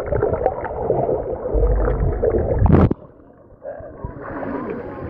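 Pool water heard through a submerged camera: muffled underwater bubbling and gurgling as a dog swims past, ending in a splash as the camera breaks the surface near the three-second mark. After that comes quieter lapping water above the surface.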